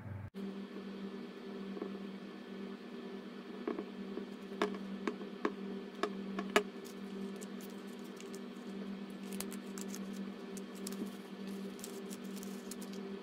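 Kraft-paper cones being handled and set down on a table: a run of light, sharp taps and paper sounds from about three and a half to seven seconds in, the last one the loudest, over a steady low hum.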